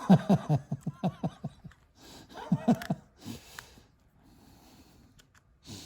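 A man laughing: a quick run of breathy chuckles that fades out within the first couple of seconds, followed by a brief voiced chuckle and quiet breathing.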